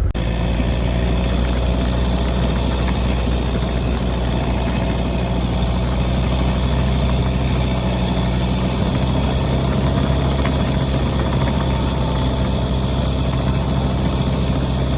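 Isuzu 4BD1T turbo diesel of a Tucker 1544 Sno-Cat running steadily at an even, unchanging engine speed.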